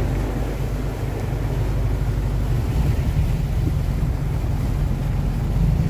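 Boat's Cummins diesel engine running steadily, a constant low rumble, with wind on the microphone.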